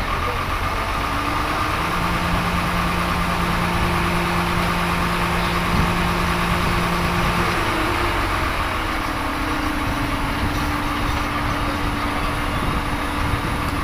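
Truck-mounted crane's diesel engine running steadily while holding a load, with a steady hum that shifts lower about eight seconds in.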